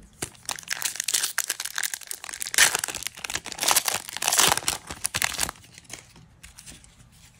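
Foil wrapper of a Magic: The Gathering collector booster pack being torn open and crinkled by hand: a dense crackling rustle that dies down about five and a half seconds in.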